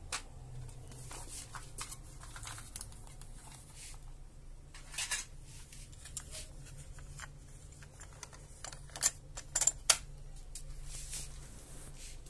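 Sony TC-V7 cassette deck's mechanism clicking and clunking: scattered sharp clicks, the loudest several in quick succession about nine to ten seconds in, over a faint low hum.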